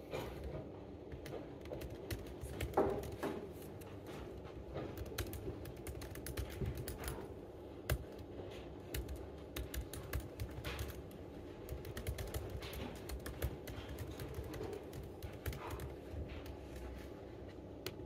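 Typing on a MacBook laptop keyboard: a continuous run of irregular key clicks, several a second, with a couple of louder keystrokes about three and eight seconds in.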